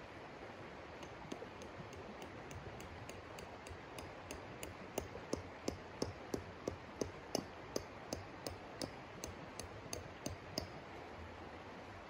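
A tent stake being hammered into the frozen ground: a run of sharp, evenly spaced taps, about three a second. They start sparse about a second in, come loudest in the middle, and stop shortly before the end. Under them is the steady rush of a flowing river.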